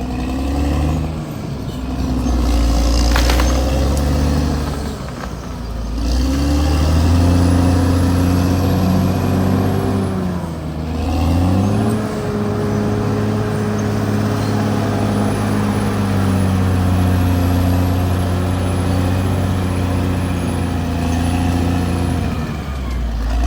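Caterpillar D6R XL bulldozer's diesel engine working under load. Its pitch sags and climbs back several times, most clearly dipping about ten seconds in and recovering by about twelve. A brief sharp sound comes about three seconds in.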